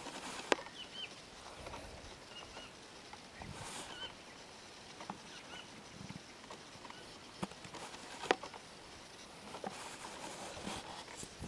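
Outdoor countryside ambience with small birds giving short chirps now and then, and a few sharp clicks, twice loudly: once about half a second in and once past the middle.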